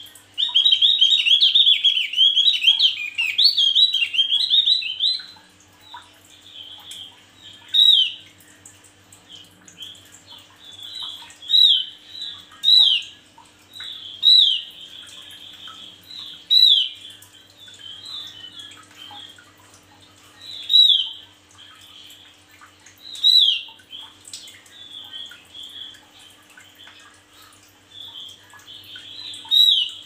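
Male Javan grey-throated white-eye (opior jawa) singing. It gives a loud, rapid run of chattering notes for the first five seconds, then single short down-slurred calls every couple of seconds.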